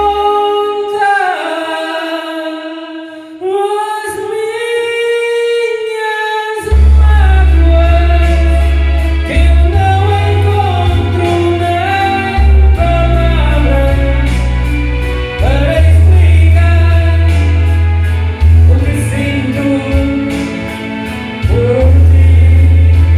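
A solo singer sings a sustained melody over a karaoke backing track. The bass drops out for the first several seconds, then comes back strongly about seven seconds in and carries on under the voice.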